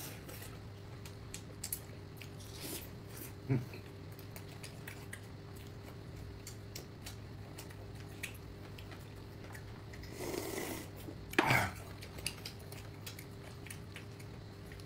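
A person eating: quiet chewing with scattered small clicks of chopsticks and dishes over a steady low hum. A brief louder sound comes about eleven and a half seconds in.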